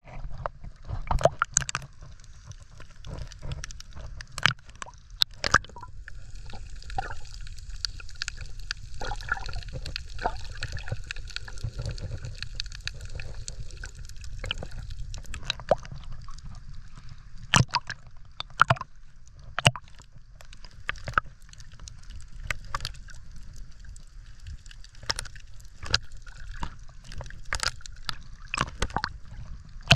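Water sloshing and gurgling around a snorkeler's camera, heard underwater: a steady low rumble with many scattered sharp clicks and pops.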